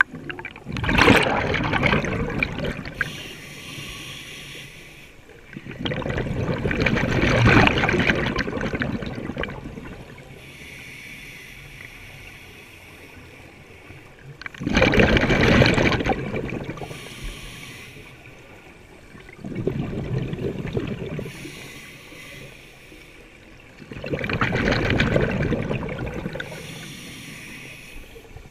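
Scuba regulator heard underwater: exhaled bubbles rush out in five loud bursts a few seconds apart, with a softer hiss between breaths.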